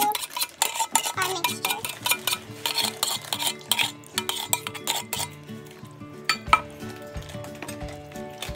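Metal wire whisk beating a thick, wet cassava cake batter in a plastic bowl, its wires clicking and scraping against the bowl in quick strokes. The clicks come thick and fast at first and thin out later, with one sharper knock about six and a half seconds in.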